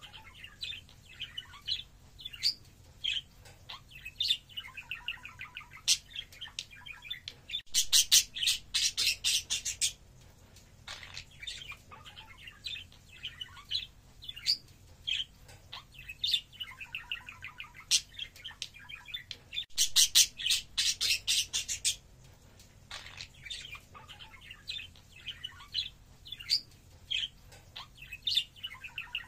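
Budgerigars chattering and warbling: a continuous run of short chirps and warbled notes. Two louder stretches of rapid, harsh chatter come about eight and twenty seconds in, each lasting about two seconds.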